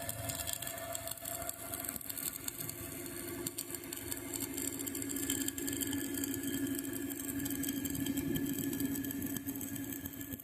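An engine running steadily at a moderate level.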